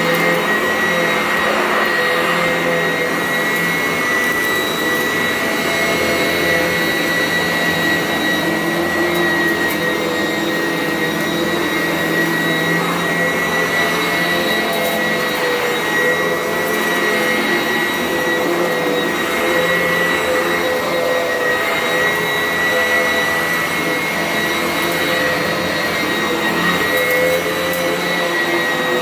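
Sanitaire upright vacuum cleaner running steadily, its motor giving a constant high whine over a rushing hiss.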